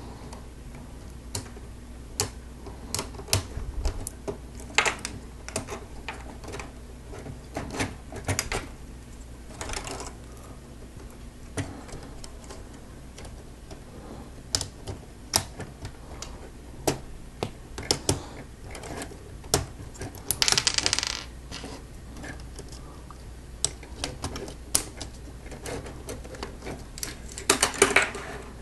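Hard plastic Lego Technic pieces clicking and tapping as they are handled and pressed together, in irregular sharp clicks. About two-thirds of the way through comes a short rattling rustle, as of loose pieces being sifted.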